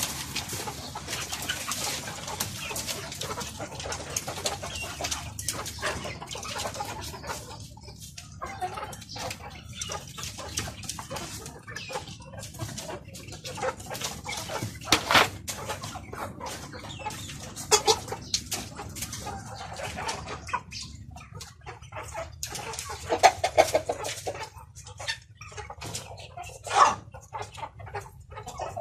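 A flock of young chickens clucking and calling amid a steady patter of short clicks and rustling, with several louder calls standing out, most of them in the second half.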